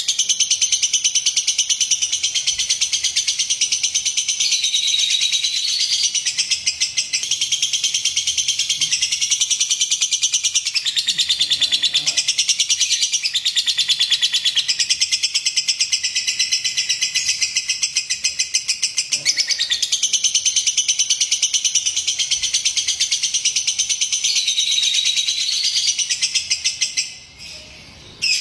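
Lovebird singing a long, unbroken, high-pitched rapid chattering trill, which stops near the end.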